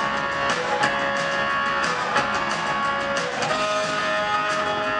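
Live band music: drums and cymbals hitting in a steady beat under held electric guitar chords.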